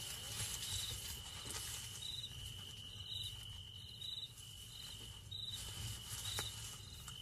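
Night-time insect chorus: a steady high trill with short, higher chirps repeating about once a second, over a faint low rumble.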